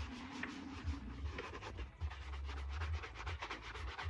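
Shoe brush scrubbed briskly back and forth over a shoe to polish it: a fast run of short, bristly rubbing strokes over a low rumble.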